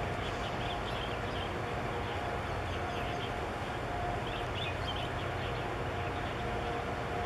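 Steady low rumble of a large container ship passing close under way, with a faint hum that fades in and out and a few short high chirps over it.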